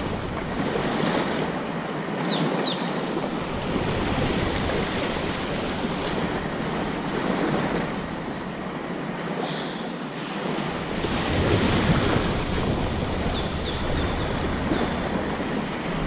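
Small waves lapping and washing up onto a sandy beach, rising and easing in slow swells.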